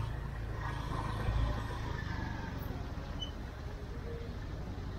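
Small motorbike engine running at low speed, a steady low rumble with road and wind noise, and a brief low thump about a second and a half in.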